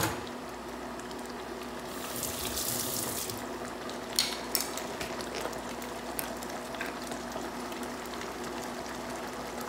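A pan of ground-beef picadillo in tomato sauce simmering, bubbling and popping steadily over a faint hum. A sharp click comes right at the start, a louder stretch of hiss about two seconds in, and two quick pops around four seconds in.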